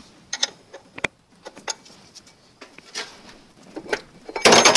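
Light metal clicks and taps as a lathe change gear and spanner are handled while the gear is refitted on its stud, with a short, louder scrape near the end.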